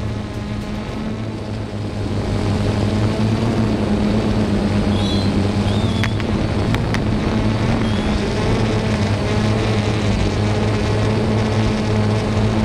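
Hexacopter's motors and propellers humming steadily in flight. Around the middle, brief whistles and two sharp pops as its firework rockets fire.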